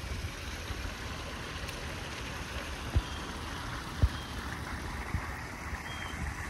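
Steady rush of a small creek spilling over rocks into a pool, with two low thumps about a second apart near the middle.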